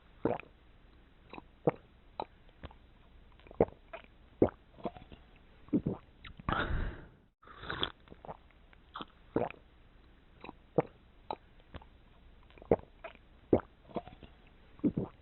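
Water-drop sound effect made with the mouth: a series of irregularly spaced wet pops and clicks, like drips plopping. A longer, noisier wet sound comes about six and a half seconds in.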